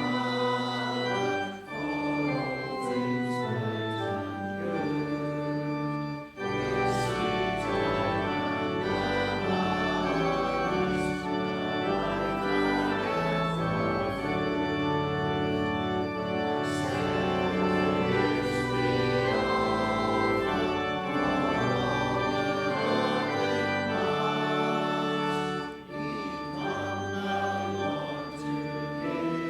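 Church organ playing slow sustained chords, with short breaks between phrases.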